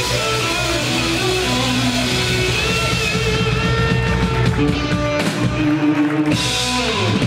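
Live rock band playing the closing bars of a song: electric guitar over drum kit and bass, with held notes. The low end cuts out for about a second around five seconds in.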